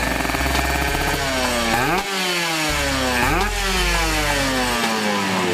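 Kawasaki Ninja drag bike's engine running, then revved twice in quick blips about a second and a half apart, each rising sharply and sinking slowly back down.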